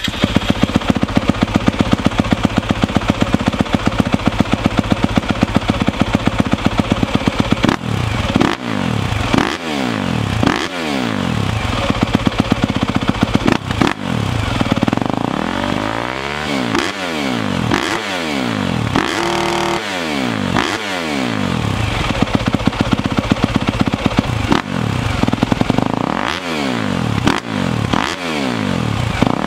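2021 Yamaha YZ250F's single-cylinder four-stroke engine running through its stock exhaust. It idles steadily for about eight seconds, then is revved in a long series of quick throttle blips, each rising and falling, with a short steadier stretch about two-thirds of the way through.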